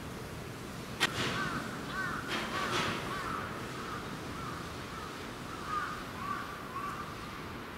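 Crows cawing in a run of short calls, with a sharp click about a second in.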